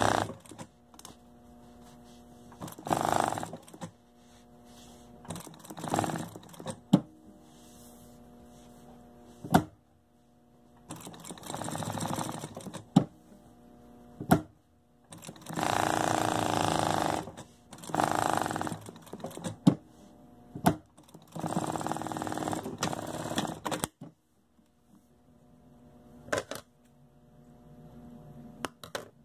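Domestic sewing machine topstitching in short runs of one to two seconds, stopping and starting about seven times, with single sharp clicks in the pauses between runs.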